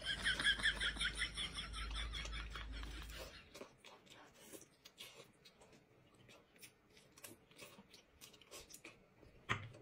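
Soft close-up chewing and mouth sounds of someone eating braised pork belly, heard as faint scattered clicks. For the first three seconds or so a faint low hum and a wavering high tone sit underneath.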